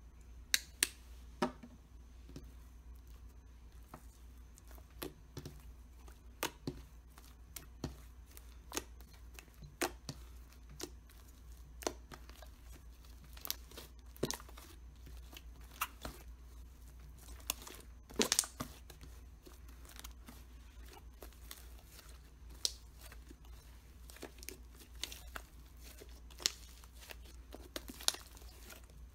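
Hands kneading, folding and squeezing pink slime to work in red food colouring: irregular sticky pops and crackles, one to three a second.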